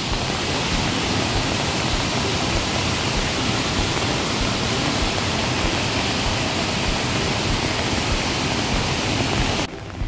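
Ramboda Falls in full spate, swollen by rain, giving a steady rush of pouring water. The sound cuts off suddenly near the end.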